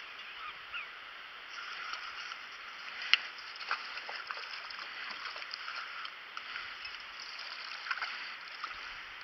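Creek water running steadily, with scattered sharp clicks, the loudest about three seconds in, and a small splash near the end as a hooked trout thrashes at the surface.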